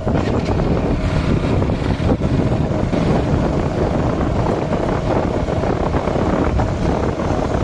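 Wind buffeting the microphone over the steady running of a KTM Duke motorcycle riding along a dirt road.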